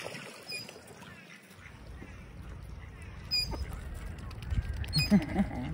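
Ducks quacking among feeding waterfowl, with a few short calls near the end and a low rumble coming in about one and a half seconds in.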